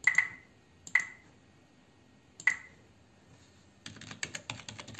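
Three single computer-mouse clicks spaced a second or more apart, then, about four seconds in, a quick run of clicking keys on a computer keyboard.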